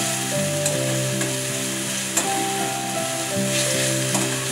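Tamarind broth with fried hilsa fish heads boiling and sizzling in a steel kadai, with a spatula stirring and a few light clicks. Soft background music of held notes plays underneath.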